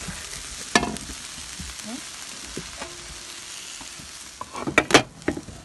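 Dried mloukhiyeh (jute mallow) leaves sizzling as they fry in a pot, with a steady hiss while they are stirred with a wooden spoon. One sharp knock comes about a second in, and a few quick clatters of the spoon against the pot come near the end.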